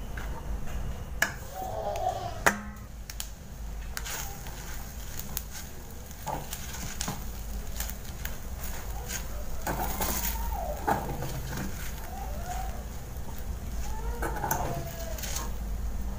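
Spatula scraping and knocking against a metal pot while stirring fried rice on the stove, with irregular sharp clicks, the loudest about a second in, at two and a half seconds and near eleven seconds.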